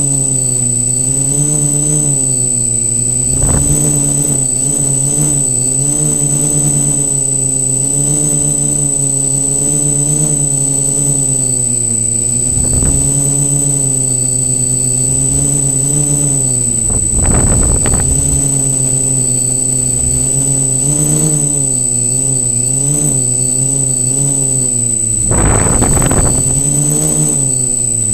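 Quadcopter's electric motors and propellers buzzing, heard from the camera on the airframe, the pitch wavering up and down as the throttle changes, with a thin steady high whine over it. Four short gusts of wind rumble on the microphone.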